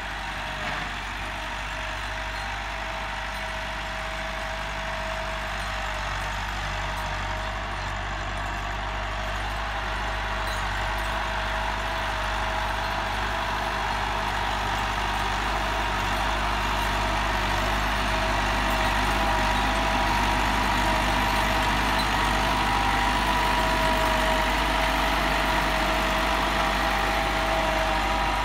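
Massey Ferguson 385 tractor's diesel engine running steadily under load while pulling a tined cultivator through ploughed soil, with a steady whine over a low rumble. It grows gradually louder as the tractor draws closer.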